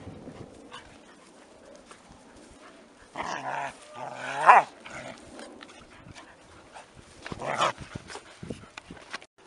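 Puppies play-fighting, giving short growls and barks in three outbursts: about three seconds in, again a second later with a loud yap that rises in pitch, and once more near the end.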